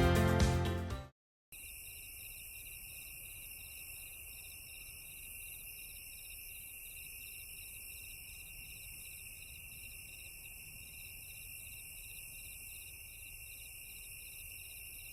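Background music fading out in the first second, then crickets chirping in an even rhythm, about three chirps a second, over a steady high hiss of insects.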